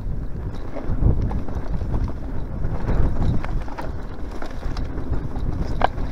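Mountain bike rolling over bumpy grass singletrack, wind rumbling heavily on the microphone, with scattered clicks and rattles from the bike over the rough ground.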